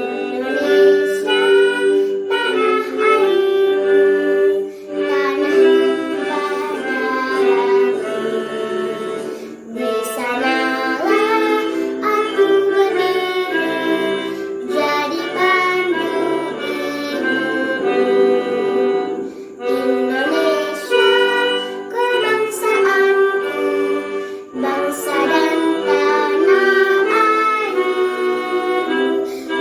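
A young female voice singing a song over sustained instrumental accompaniment, phrase after phrase with short breaths between. She is singing with a cough and cold, which keeps her voice below its best.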